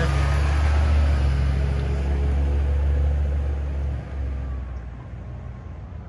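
School bus engine running as the bus pulls away, a steady low drone that drops about four seconds in and fades as the bus drives off.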